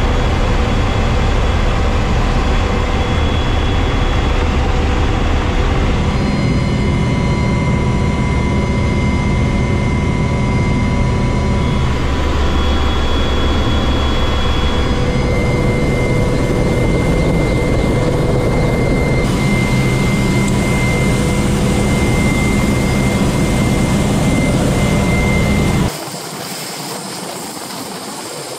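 EH-101 Merlin helicopter in flight, heard from the cockpit: steady engine and rotor noise with a deep rumble and a thin, steady high whine, in several spliced stretches. Near the end it turns quieter and hissier, heard at the open cabin door above the rotor downwash on the sea.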